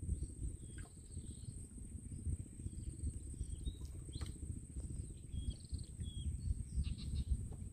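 Outdoor ambience on the water: a low, uneven rumble with a steady high insect drone and short high bird chirps scattered through it, plus a few brief light clicks as the gill net is handled over the boat's side.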